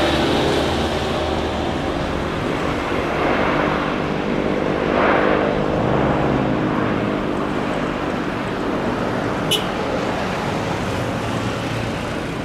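Jet engines of a Thai Airways Airbus A350 rolling along the runway: a steady engine noise that eases off a little toward the end. A short sharp click about nine and a half seconds in.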